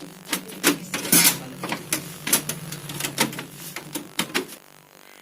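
Hard parts of a printer being handled: a quick, irregular run of clicks and knocks that stops about four and a half seconds in, over a steady low hum.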